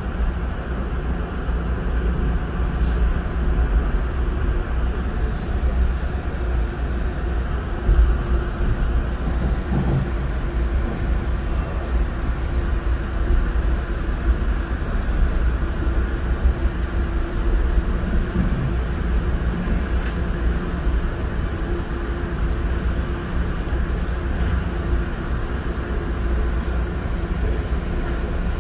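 Metro-North commuter train running along the track, heard from inside the passenger car: a steady low rumble with a faint, even hum and occasional light clicks.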